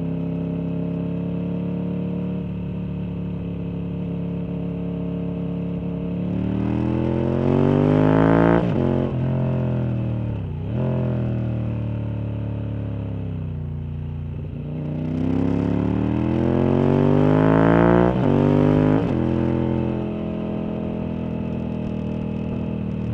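Motorcycle engine heard onboard while riding, running steadily at part throttle. Twice, the revs climb under acceleration and then drop sharply, about six seconds in and again about fifteen seconds in.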